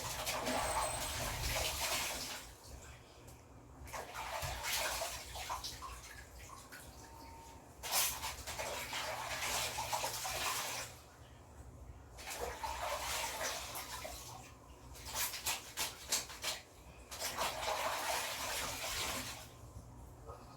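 Clothes being washed by hand in water: repeated bursts of sloshing and scrubbing, each a second or a few seconds long, with short pauses between.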